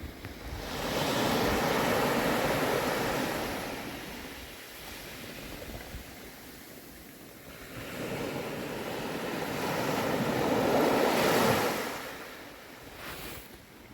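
Small sea waves breaking and washing up the beach in two slow surges. The first swells up about a second in, and the second builds from about eight seconds and fades near the end.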